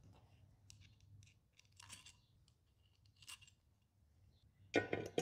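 Small metal parts being handled: a few faint clicks and rustles, then a louder metallic clatter near the end as a pneumatic push-button valve and its mounting bolts are fitted against a metal frame.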